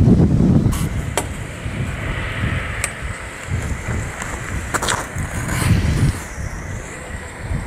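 Wind buffeting the camera microphone, a low rumble that comes and goes in gusts, with a few faint clicks.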